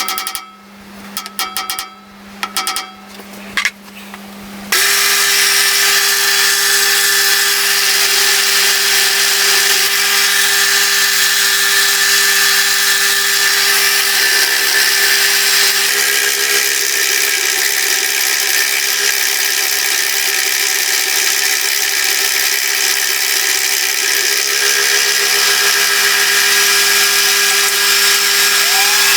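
Milling machine with a fly cutter: a few knocks and clicks over the machine's steady hum, then about five seconds in the cutter goes into the work and a loud, steady hissing cut runs on.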